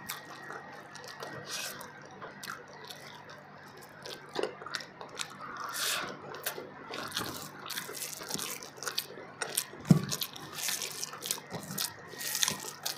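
Close-up eating sounds: wet chewing and lip-smacking of mouthfuls of fish biryani eaten by hand, with soft squishing of rice being mixed on a banana leaf. A single low thump about ten seconds in.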